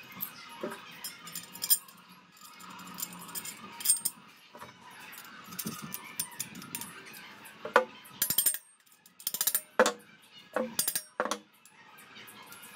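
Small metal brackets, bolts and nuts clinking and clicking as they are handled and fitted onto a square metal tube. There is a quick cluster of sharp metallic clicks about eight seconds in and several more over the next few seconds.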